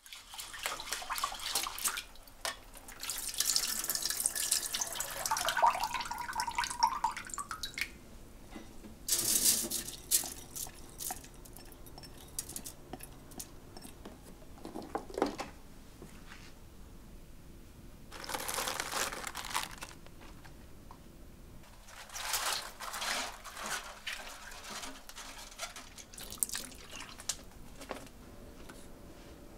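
Kitchen tap water running into a stainless steel sink basin in several separate bursts, splashing over napa cabbage being rinsed. Early on the pitch of the running water rises as the basin fills.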